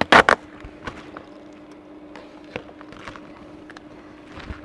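Seam tape being cut and peeled up off a plastic crawl space vapor barrier: a short, loud crackling rip right at the start, then faint rustling and crinkling of the plastic sheet. A faint steady hum runs underneath.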